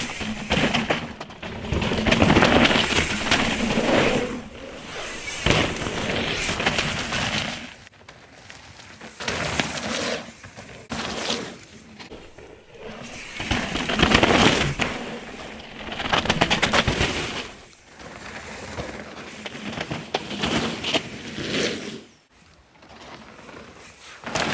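Mountain bike tyres rolling and scrubbing over loose dirt and gravel through berms, in surging waves of noise that swell and fall every second or two. Short clicks and rattles from the bikes and stones sound throughout.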